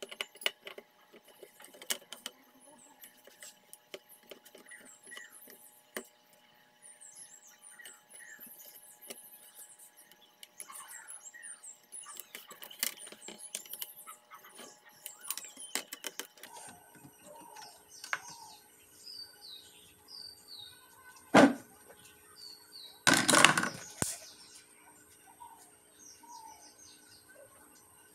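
Hands unplugging ribbon-cable connectors and lifting the main circuit board out of an electronic scale's plastic housing: light clicks and rustles, then two louder knocks, a short one and a longer cluster, about three-quarters of the way through. Birds chirp in the background.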